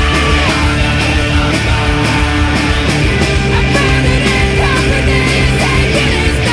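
Post-hardcore rock song with distorted electric guitars, bass and drums playing at a steady loud level.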